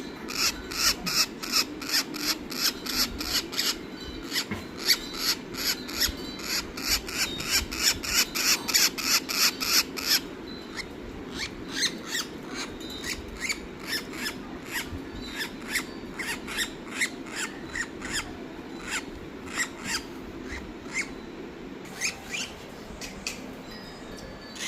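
A small bird of the parrot kind giving a long series of short, clipped calls, about two to three a second, dense and loud for the first ten seconds, then sparser and quieter.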